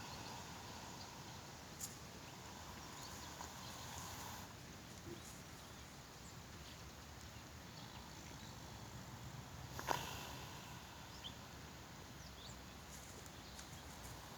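A horse lying down and snoring in its sleep: faint, slow breaths a few seconds apart, with a few small clicks.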